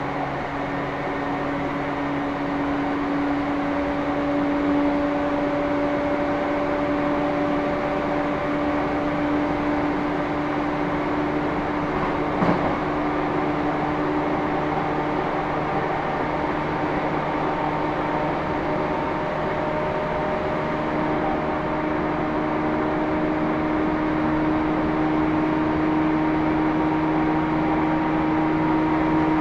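Running noise inside a JR East E235-1000 series motor car at speed: a steady rumble of wheels on the rails under the whine of the MT79 traction motors and gears, which rises slowly in pitch. A single sharp knock about twelve seconds in.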